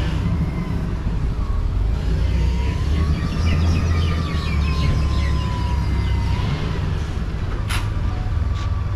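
A vehicle engine running with a steady low rumble, with a faint whine that slowly rises and falls in pitch in the middle and a sharp click near the end.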